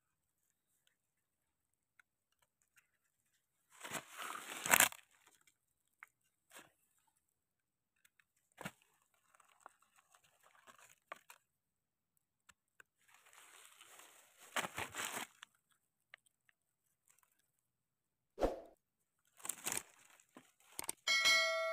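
Dry fallen leaves rustling and crunching in a few short bursts, with small clicks between, as hands move through leaf litter picking mushrooms. Near the end a short bright chime rings out.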